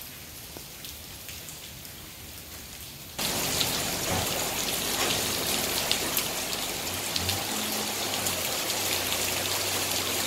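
Tropical rain falling steadily with many close drop ticks. It is light at first, then a little over three seconds in it cuts abruptly to much louder, heavier rain.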